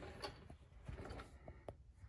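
Faint, scattered small clicks and light scraping, a dozen or so short ticks at uneven intervals.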